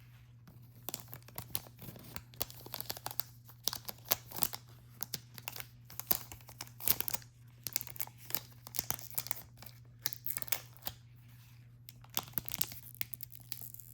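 Plastic wrapping crinkling and rustling in irregular crackles as it is handled to seal a Zippo lighter away for storage, over a faint steady hum.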